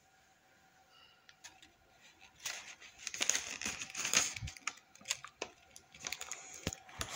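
Handling noise of a phone held close: a quiet stretch, then from about two and a half seconds in a busy run of light clicks and rustling.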